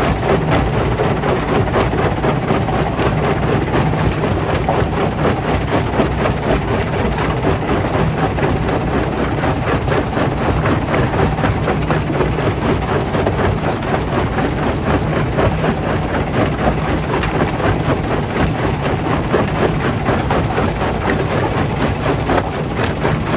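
Stone crusher plant machinery running steadily: a continuous engine or motor hum under a dense, unbroken clatter.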